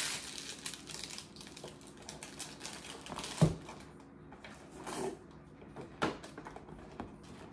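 Small packaged gift items and crinkly wrapping being handled, with scattered light clicks and rustles and one dull thump about three and a half seconds in.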